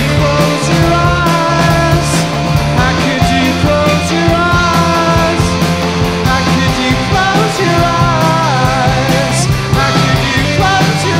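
Live rock band playing an instrumental passage: electric guitar lines, some bending and sliding in pitch, over bass and a drum kit.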